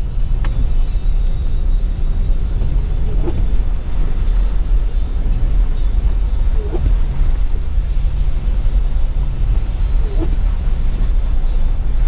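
Steady low rumble inside a vehicle's cabin as it drives on snow-covered streets, with the windshield wipers sweeping across the glass about every three and a half seconds.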